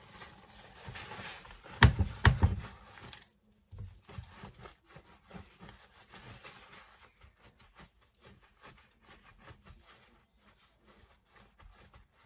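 Paper towel rustling and crinkling as hands press and pat it over a raw beef steak on a wooden cutting board to dry the meat, with a few heavy thumps about two seconds in. The rustling grows sparser and quieter toward the end.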